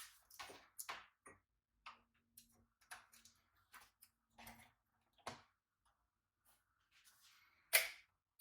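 Hands handling a router and its packaging: an irregular run of soft clicks, taps and short rustles, with one louder knock near the end.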